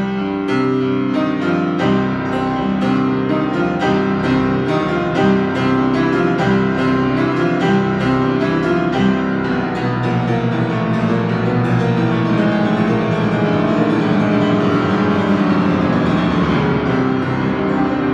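A 93-year-old grand piano, freshly tuned, played continuously: a stream of quick notes. From about ten seconds in, the playing turns into a denser, held passage that is heavier in the bass.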